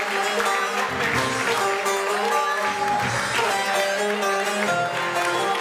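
Live band playing an instrumental Turkish folk tune, a saz (bağlama) carrying a plucked melody of quick notes over the band's low rhythm.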